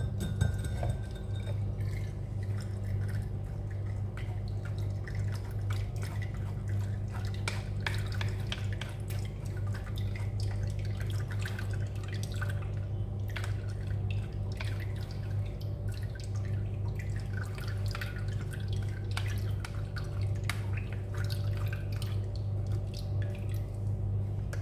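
Wooden spatula scraping and pressing thick juice pulp through a wire-mesh sieve, with juice dripping into a glass jug: many small irregular clicks and scrapes over a steady low hum.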